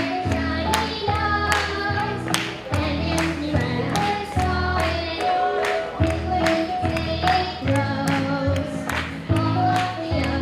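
A child singing a Christmas song into a microphone over a recorded backing track with a steady drum beat and bass line, heard through a stage PA.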